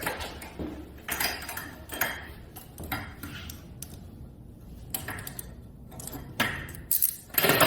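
Metal handcuffs clinking and rattling in several short, separate bursts.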